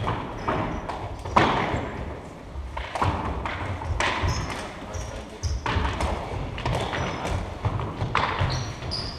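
Floor hockey sticks smacking the ball and slapping the hardwood floor in a series of sharp knocks a second or so apart, echoing around a large gym, with short high squeaks of sneakers on the floor.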